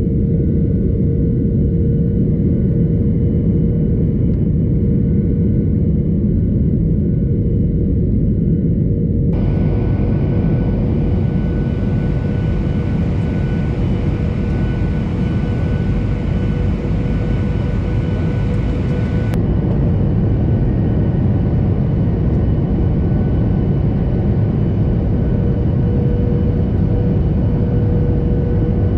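Steady jet roar heard inside the cabin of a Boeing 737 from a window seat over the wing, during the descent: engine and airflow noise with a constant hum tone. Its higher part changes abruptly twice, about a third and two thirds of the way in, where recordings are joined.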